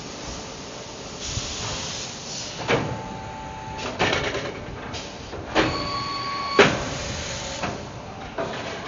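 Automated sheet-metal folding machine on a damper-frame production line at work: four metal clanks a second or so apart, with a steady whine held for about a second twice between them, over factory machine noise.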